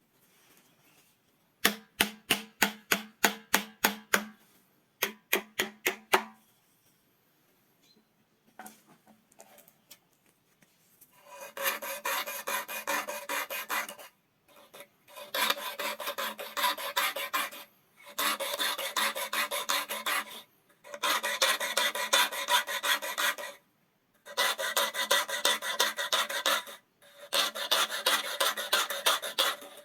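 The tips of a wooden comb's teeth being sanded by hand. First come two short runs of quick, sharp clicking strokes. Then, from about a third of the way in, there is continuous rasping, in spells of two to three seconds with short pauses between them.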